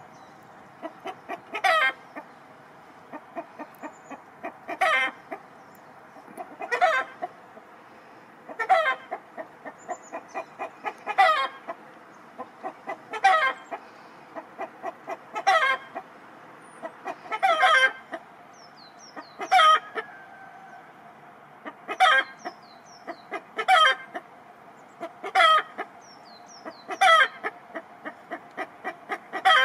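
Chicken cackling in a steady repeating pattern: a run of short clucks building to one loud squawk, about every two seconds. Small birds chirp faintly behind it in the second half.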